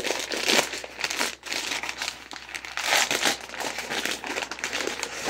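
Amazon kraft-paper padded mailer being pulled and torn open by hand, giving a continuous run of irregular crinkling and crackling rustles.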